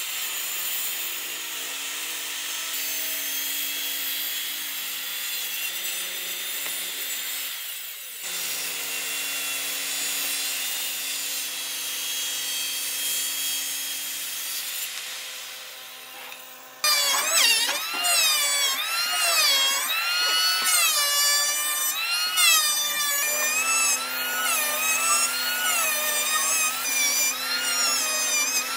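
Handheld power tool working wood: a steady hissing run, then about two-thirds of the way through it turns suddenly louder, its whine rising and falling in pitch as it bites into the wood.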